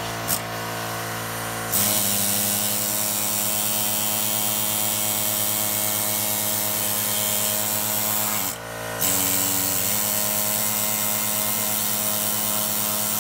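Air-powered die grinder with an abrasive pad scraping corroded gasket residue off the aluminium water-pump mounting surface of a Ford 302 V8. It starts about two seconds in, drops out briefly near nine seconds, then runs on steadily over a lower steady hum.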